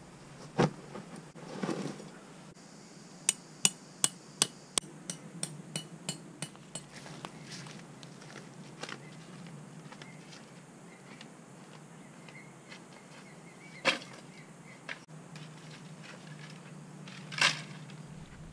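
Sharp knocks while a canvas swag tent is pitched. A run of about a dozen quick knocks comes roughly three a second and grows fainter, with a few louder single knocks before and after.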